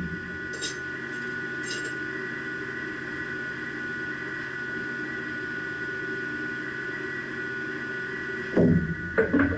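Steady hum of running machine-shop equipment, with a few constant whining tones over it. Two faint light clicks come in the first two seconds, and several loud metal knocks and clanks come near the end as the part is handled.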